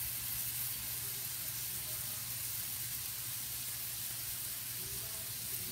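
Sliced sweet peppers, cherry peppers and onions sizzling steadily in oil in a stainless-steel skillet.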